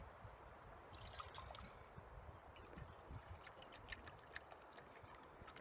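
Faint lapping and trickling of lake water, with scattered small clicks and taps.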